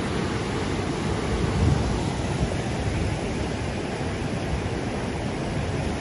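Fast-moving floodwater in a swollen river, rushing steadily, with wind gusting on the microphone, loudest about a second and a half in.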